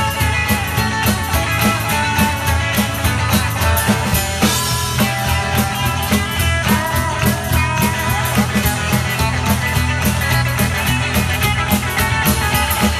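A live band playing an instrumental break with no singing: upright bass and drums keep a steady beat under acoustic and electric guitars, with a harmonica playing bending notes.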